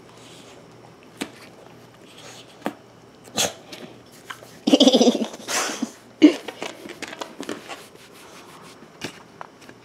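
A pet's brief vocal call about five seconds in, with a shorter one a second later, amid scattered short clicks and scuffs.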